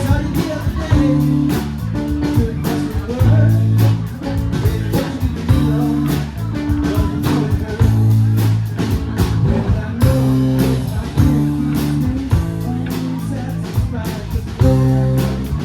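Live blues band playing an electric blues number, with guitar, bass and drums keeping a steady beat and some singing.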